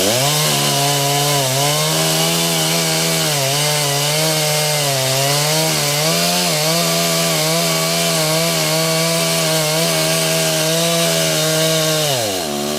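Two-stroke chainsaw revved up to full throttle and held there while cutting into a tree trunk, its pitch dipping slightly now and then under load. Near the end it drops back toward idle.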